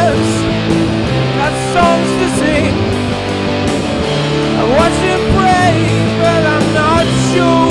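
Rock band playing an instrumental passage: electric guitars with a lead line of bent, gliding notes over drums and low sustained notes.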